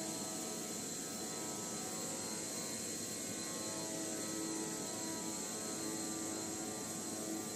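CNC high-speed metal circular sawing machine running, a steady hum with a few faint whining tones over a hiss.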